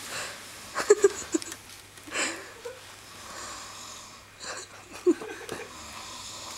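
A sleeping person snoring, one snore every two to three seconds, with a cluster of short sharp sounds about a second in.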